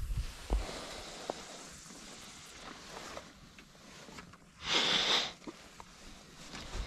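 One sharp sniff through the nose about five seconds in, after a couple of light knocks early on against a quiet background.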